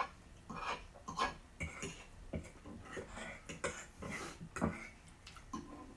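Eating at a plate: cutlery clinking and scraping on the dish, with chewing, heard as a string of short, irregular clicks.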